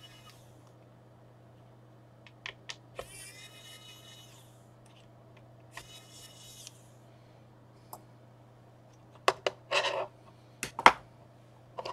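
Screwdriver working the screws of a MacBook Pro's hard-drive retaining bracket: small metal clicks and two short squeaks. Near the end comes a run of sharper clicks and a brief scrape as the metal parts are handled.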